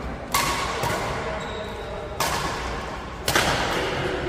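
Badminton rackets striking a shuttlecock three times during a rally, each sharp crack echoing through a large sports hall.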